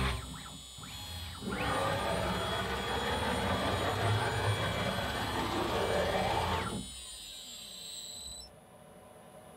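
CNC router spindle driving a drill bit into a melamine-faced chipboard base: the rough noise of the cut over a steady high spindle whine, starting about a second and a half in and stopping about seven seconds in. The whine then carries on alone and fades out shortly before the end.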